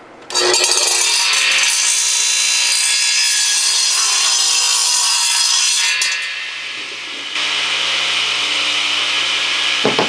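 A 10-inch radial arm saw starts up and crosscuts a 2x6 board. The noise begins suddenly with a brief rising whine as the blade spins up and stays loud for about six seconds. It eases, then picks up again about seven seconds in.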